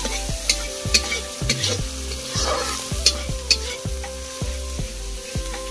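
Metal spatula stirring and scraping onions frying in hot oil in an iron wok, with repeated scraping strokes over a steady sizzle.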